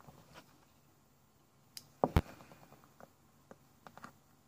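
Faint scattered clicks and small taps from a utility knife blade and a fuel injector being handled on a workbench while the injector's old Teflon seal is cut, with one sharper knock about two seconds in.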